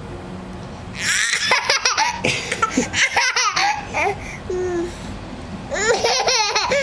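A 13-month-old baby laughing in bursts of quick, pulsing giggles. The first burst starts about a second in, and a second burst comes near the end.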